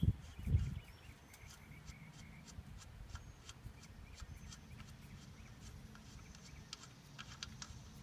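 A low thump about half a second in, then faint outdoor background with a bird chirping briefly around two seconds in.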